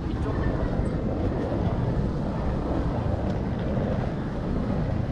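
Steady, low rumbling city-street noise with no single sound standing out.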